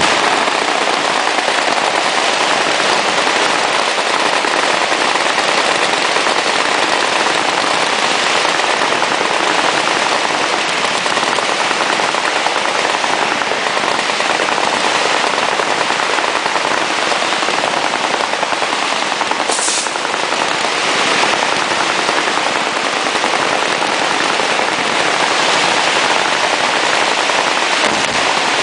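Continuous rapid gunfire from several automatic guns at once, a dense unbroken crackle that does not let up.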